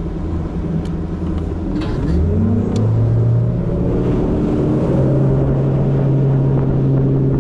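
Bass boat's Mercury four-stroke outboard motor accelerating from low revs, its pitch rising about two to three seconds in as the boat gets onto plane. It then runs steadily at high revs.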